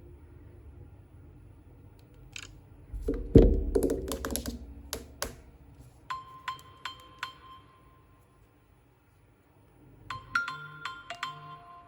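Clicks and knocks from an iPhone being handled, with one heavy thump a few seconds in. Then two short runs of bright electronic pings, one about halfway through and another near the end, the second at several pitches.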